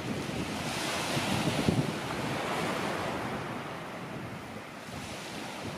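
Wind buffeting the microphone in irregular low gusts, over a rushing hiss that swells about a second in and eases off near the end.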